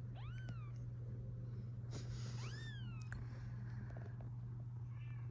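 Newborn kittens mewing: two thin, high mews that rise and fall, one right at the start and one about two and a half seconds in, with a fainter mew near the end. A short rustle comes just before the second mew, over a steady low hum.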